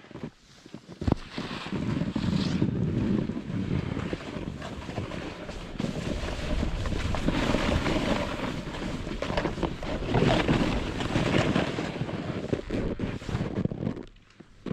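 Skiing downhill: wind rushing across the microphone and skis sliding over snow make a steady rushing noise, which drops away suddenly near the end.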